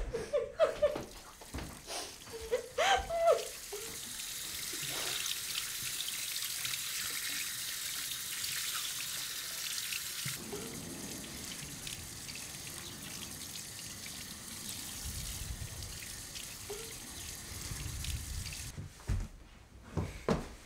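Tap water running into a sink in a steady rush; about ten seconds in, the sound turns lower and fuller.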